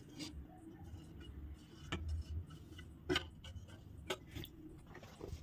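Thick tender-coconut and semolina batter being poured into a stainless-steel bowl: faint, with a few light knocks about two, three and four seconds in.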